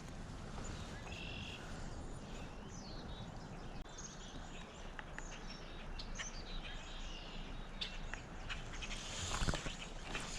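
Small birds chirping over the steady rush of the river, with a few faint clicks near the end.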